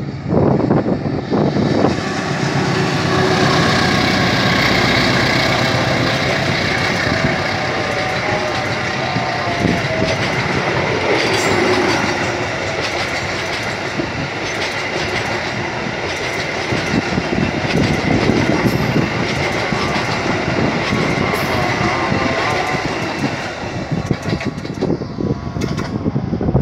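CC206 diesel-electric locomotive hauling an express passenger train past close by, followed by a long string of coaches rolling past with a steady rush and the clicking of wheels over the rail joints. It is loudest a few seconds in as the locomotive passes, and eases a little near the end as the last car moves away.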